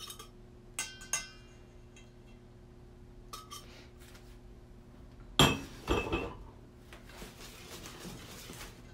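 Clinks and knocks of a blender jar against a stainless steel mixing bowl as the batter is poured out, with two louder knocks about halfway through, then faint scraping in the bowl.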